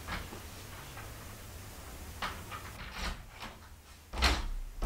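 Wooden front door being handled and opened: a few short latch clicks, then a louder knock with a deep thud about four seconds in.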